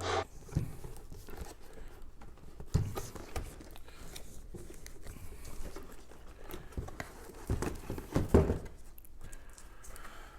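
Plastic model kit box being opened and its contents handled: crinkling, rustling and scattered knocks, with a few louder handling bursts late on.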